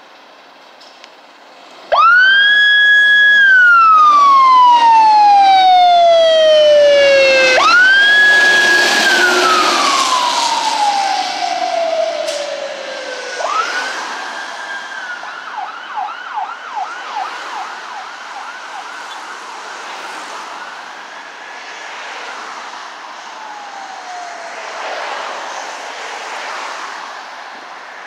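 Fire engine's siren wailing: about two seconds in it rises sharply, holds, then slides slowly down, three times over, the third cycle chopped into a quick up-and-down warble before it slides down again. The siren fades as the engine drives away.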